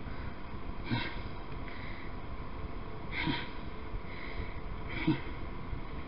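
A man sniffing or snorting through his nose three times, short and about two seconds apart, over a steady faint background hum.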